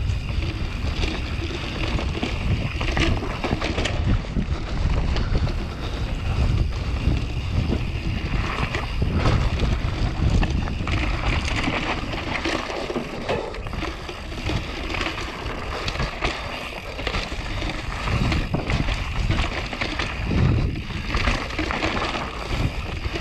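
Wind buffeting the microphone of a mountain bike's on-board camera, with knobby tyres rolling over a dirt trail and the bike knocking and rattling over bumps on a fast descent.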